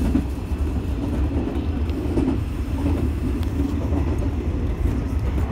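201 series electric train running along the track, heard from inside its driver's cab: a steady low rumble of wheels and running gear, with a few faint ticks.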